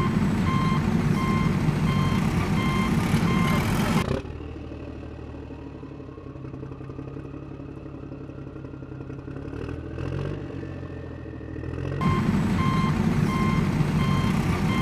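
Heavy construction-vehicle engine sound effect running with a reversing beeper sounding in regular short beeps. About four seconds in it drops to a quieter engine hum with a slowly rising whine, and the loud engine and beeping return about twelve seconds in.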